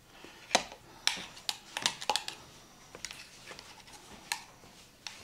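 A spoon tapping and scraping against a jar and bowl while homemade mayonnaise is scooped into the jar: scattered light clicks at irregular intervals.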